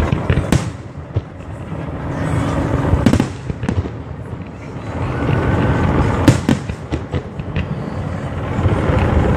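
Aerial firework shells bursting at close range: a run of sharp bangs and crackling over swells of low rumble. The loudest bang comes about six seconds in.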